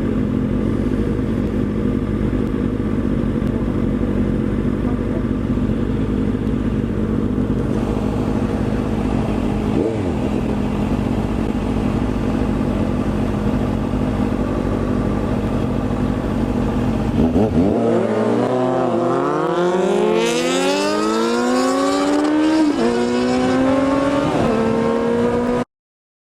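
Motorcycle engine running steadily at cruising speed. About two-thirds of the way in, it revs hard several times, the pitch rising and falling again and again. The sound cuts off suddenly near the end.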